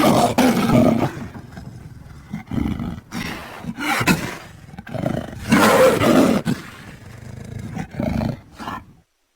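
Made-up monster roar for a female dragon kaiju, edited together from dinosaur, dragon, sabertooth and Godzilla sounds and pitched up. It is a string of roars, loudest at the start and again in the middle, and it cuts off shortly before the end.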